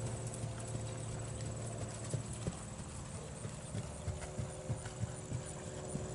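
Belgian draft horse's hooves striking soft dirt arena footing under a rider, dull hoofbeats two or three a second.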